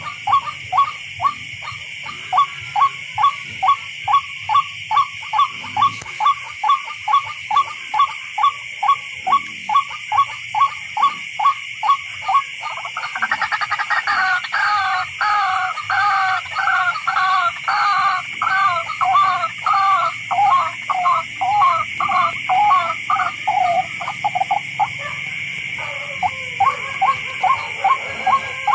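Tikling (barred rail) calling: a long series of sharp repeated notes, about two a second, which switch about halfway through to a faster, two-pitched run before the slower notes come back near the end. A steady high hum runs underneath.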